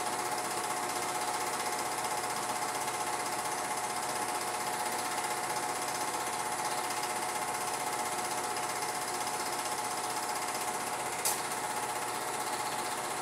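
Film projector running: a steady, rapid mechanical clatter with a constant whine, and one sharp click about eleven seconds in.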